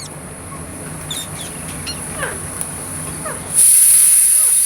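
A ringneck parrot making short chirps and falling squeaks over a low steady hum. About three and a half seconds in, a steady high hiss starts abruptly and becomes the loudest sound.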